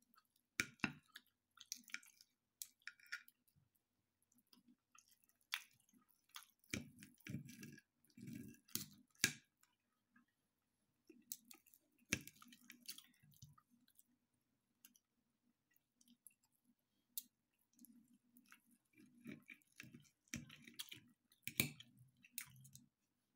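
Faint clicks and scrapes of a metal knife and fork against a ceramic plate as chicken nuggets are cut, with short chewing sounds between.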